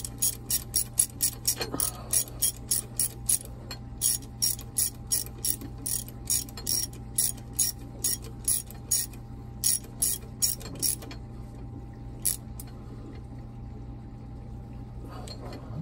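Ratchet wrench clicking in quick runs, about three or four clicks a second, as it turns the mounting bolts of a new engine seawater pump. The clicking thins out after about nine seconds, with a few last clicks up to about twelve seconds, over a steady low hum.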